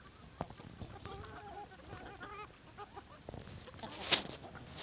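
A flock of free-range hens clucking softly with wavering calls while they feed, among scattered small ticks. A brief sharp sound stands out about four seconds in.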